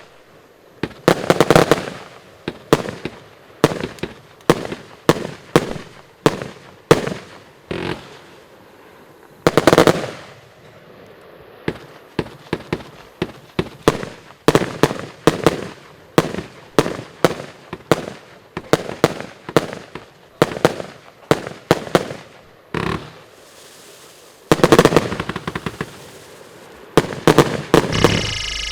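CodeZ 'Morse Code' 100-shot compound firework cake firing, a string of sharp bangs mostly one or two a second, with louder salvos now and then. Near the end it breaks into a fast run of rapid-fire bangs for its finale.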